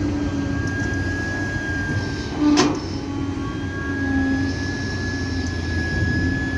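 Cat 320D excavator's diesel engine running steadily with a thin high whine held throughout, and a single sharp bang about two and a half seconds in.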